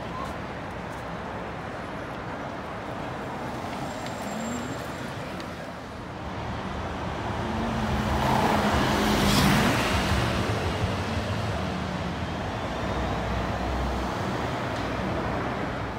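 City street traffic: a steady wash of road noise, with a motor vehicle passing close and growing louder from about seven seconds in, loudest near the middle, then fading.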